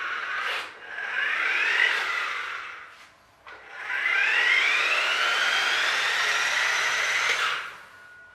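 Electric drive motor of a radio-controlled toy truck whining as it accelerates in two runs: a short burst about a second in, then a longer one from about four seconds in that rises in pitch, holds steady and stops near the end.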